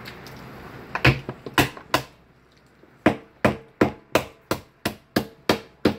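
Repeated hammering on a hard surface: a few uneven knocks, then a steady run of sharp strikes about three a second.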